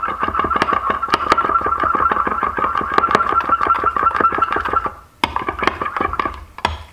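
A stir stick scraping and clinking against a glass measuring cup while rapidly stirring thick liquid plastisol, many strokes a second. The stirring stops about five seconds in, then resumes briefly.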